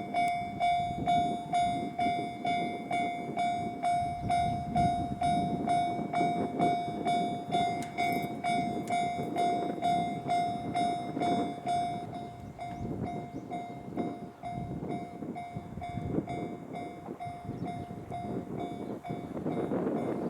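Japanese railway level-crossing warning bell ringing in rapid, evenly spaced dings, over the rumble of a JR Ryomo Line train running past the crossing. The rumble is louder in the first half and eases off after about twelve seconds while the bell keeps ringing.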